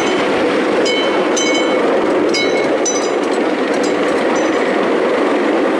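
Ride-on miniature railway train rolling along its track, a steady rumble of wheels on the rails with short, irregular metallic clicks and pings ringing over it.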